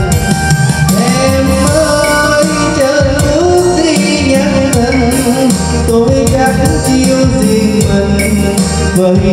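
Karaoke backing music for a slow Vietnamese ballad, with a wavering lead melody line, playing loud through the NT 4040 portable karaoke speaker with its two 40 cm woofers.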